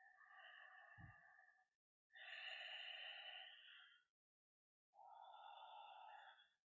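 Faint, slow, deep breaths, three in a row, each a second and a half to two seconds long with pauses between, taken while holding a strenuous full-body squeeze. A soft low bump comes about a second in.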